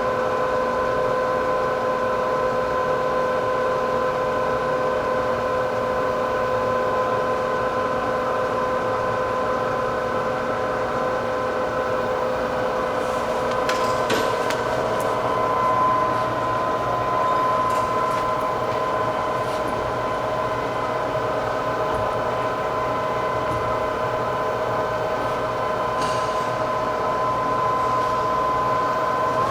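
Lehigh gap-type engine lathe running under power, a steady gear whine over a low drive hum. The whine steps slightly up in pitch about halfway through, and a few light clicks sound around the middle.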